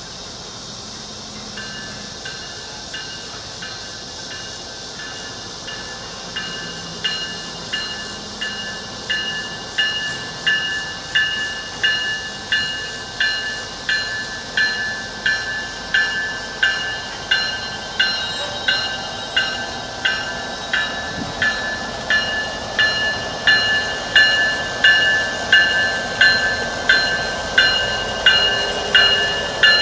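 Locomotive bell on an approaching BNSF GP39-2 ringing steadily, about one and a half strikes a second, growing louder as the train nears. The rumble of the engines and wheels builds under it toward the end.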